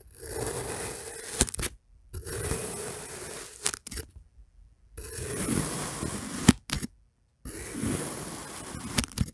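Chef's knife slicing down through a block of kinetic sand, close-miked by a microphone clipped to the knife: four slow cuts, each a gritty crunching scrape that ends in a sharp tap.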